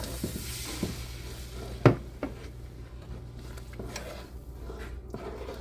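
Sizzling in the pot where water has gone into the hot butter-and-flour roux and vegetables, fading out over the first second or so. About two seconds in there is one sharp knock, the loudest sound, with a few lighter clicks around it.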